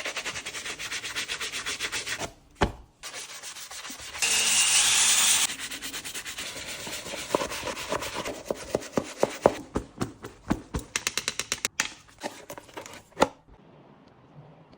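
Brush scrubbing a shoe in quick, rhythmic rubbing strokes, with a brief steady hiss a few seconds in and a run of sharper, separate strokes later on.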